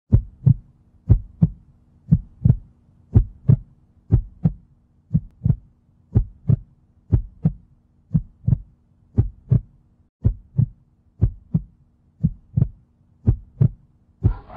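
Slow heartbeat sound effect: paired lub-dub thumps about once a second, over a faint steady hum.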